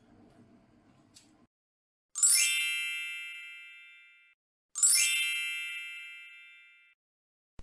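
Two identical bright chime sound effects, each opening with a quick rising sparkle and ringing out over about two seconds, the second coming about two and a half seconds after the first.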